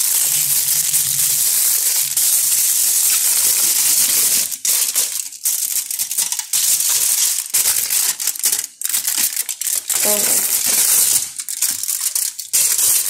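Aluminium foil wrapper being crinkled, crumpled and pulled open by hand: loud, continuous crackling broken by many short pauses.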